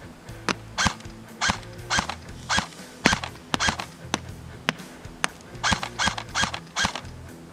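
LCT AK-12 airsoft electric gun (AEG) firing single shots in quick succession, about two a second, with a short pause about halfway through.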